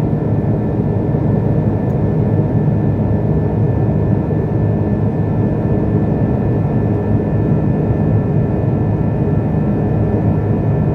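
Airliner cabin noise in flight: the steady rush of jet engines and airflow heard from inside the cabin, with a faint steady whine above it.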